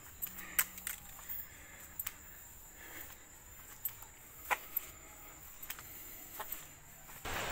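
Faint, irregular footsteps and clicks of someone walking on a cobblestone path, over a quiet background with a faint steady high tone. Near the end a louder, even hiss sets in suddenly.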